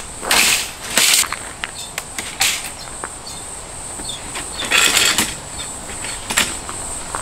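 Scrapes and knocks of a folding metal-framed camp table being set down and adjusted on gravel, loudest about half a second in, a second in and again near five seconds. Under them runs a steady high-pitched insect chirring.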